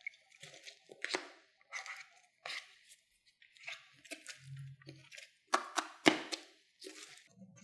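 Plastic spatulas scraping and chopping ice cream and crushed sandwich cookies on the frozen pan of a Chef'n Sweet Spot ice cream maker. The strokes come in short, irregular scrapes, the loudest a little over halfway in.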